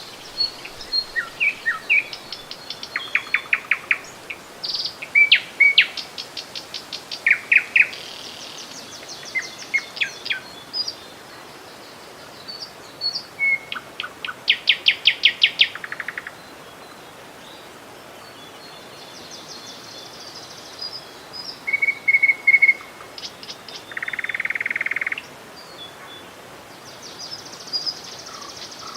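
Several songbirds calling and singing, with short chirps, whistled notes and rapid trills one after another, over a steady rush of flowing river water.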